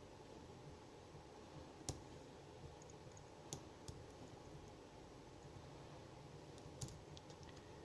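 Sparse small clicks of lock picking tools working the pins of a 4-pin Medeco cabinet lock, over near-silent room tone. There is a sharper click about two seconds in and a quick cluster of clicks near the end.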